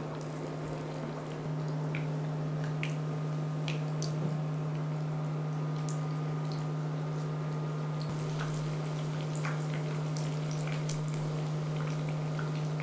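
Dough rounds frying in hot sunflower oil, with irregular sizzling crackles and pops over a steady low hum.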